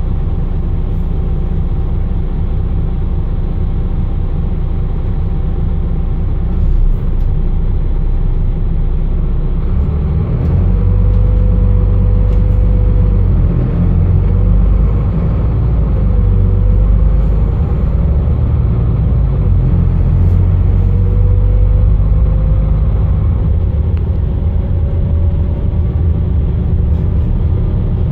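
Solaris Urbino 15's 9.2-litre DAF diesel engine running under way, heard from inside the bus, getting louder about ten seconds in. A whine in the drivetrain rises and falls in pitch, then climbs slowly near the end.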